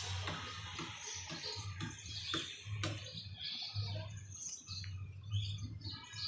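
Small birds chirping in short, scattered calls over a low hum that comes and goes.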